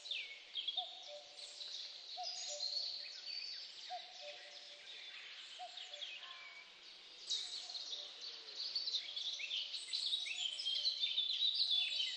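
Chorus of many birds chirping and calling at once, with a lower whistled note repeated about every one and a half seconds underneath, thickening toward the end.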